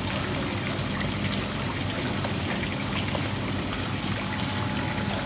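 Koi pond water splashing and trickling steadily, with koi breaking the surface as they feed and small splashes scattered through it, over a low steady hum.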